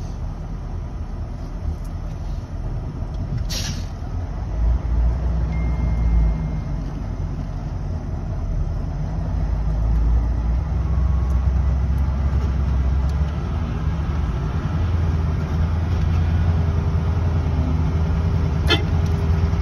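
Truck crane's engine running under way, heard from inside the cab as a steady low rumble that grows louder from about halfway through. There is a sharp click a few seconds in and another near the end.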